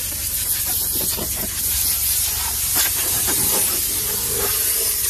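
Compressed-air blow gun on a coiled air hose, blowing a loud, continuous hiss of air to dust out a truck cab's seat and dashboard.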